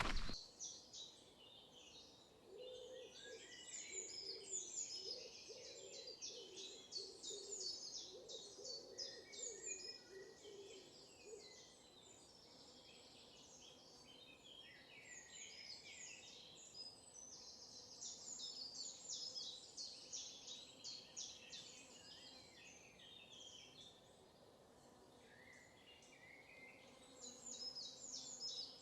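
Several wild birds singing, a steady tangle of short high chirps and trills, with a lower hooting call repeated over and over during the first ten seconds or so.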